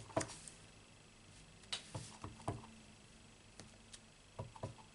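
Light taps and knocks of a clear acrylic stamp block being dabbed on an ink pad and pressed onto cardstock: a handful of short, faint clicks scattered through, some in quick pairs.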